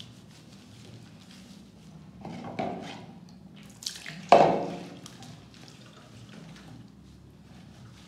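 Water dripping and splashing in a bathroom sink during a kitten's bath. There are two louder sounds with a falling pitch, about two seconds in and about four seconds in, and the second is the loudest.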